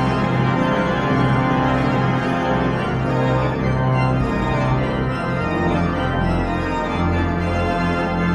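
Church pipe organ playing held chords, the bass moving to a new note about five and a half seconds in.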